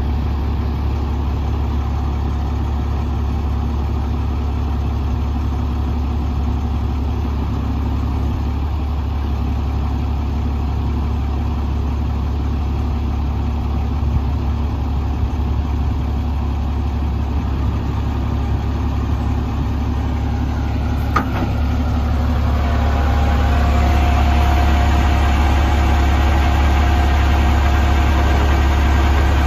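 International DT466 six-cylinder diesel idling steadily. About two-thirds of the way in there is a sharp click, and then it runs louder with a steady whine on top.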